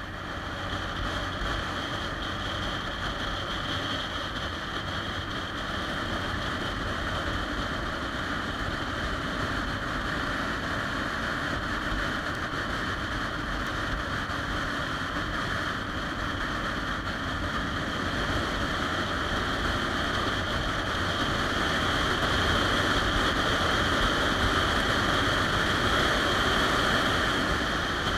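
A 2013 Triumph Rocket 3 Touring's three-cylinder engine cruising at road speed, mixed with steady wind rush, heard from the handlebars. It grows gradually louder in the last third.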